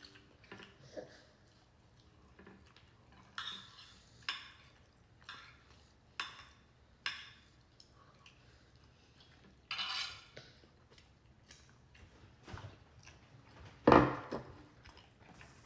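Cutlery clinking and scraping on a plate while eating: scattered short taps, a longer scrape a little past the middle, and one louder knock near the end.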